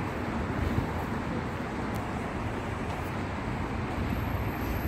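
Steady road traffic noise: an even rumble of passing cars.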